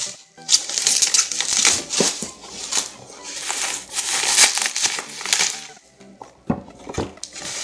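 Plastic bubble wrap crinkling and crackling as it is handled and pulled away from a small cardboard box. Near the end it goes quieter, with a couple of sharp taps.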